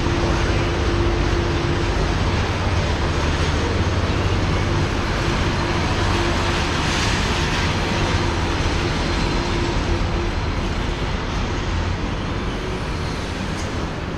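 Steady drone of idling engines and ground machinery at an airport, a low hum with a constant tone over it. The hum fades a little and the tone drops out near the end.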